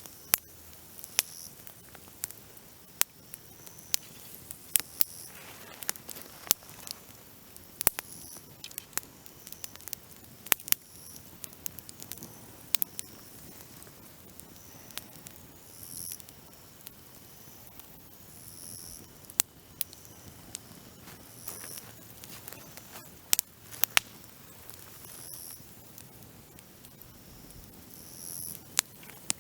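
Dry branches crackling in a campfire: sharp, irregular snaps and pops over a soft steady hiss.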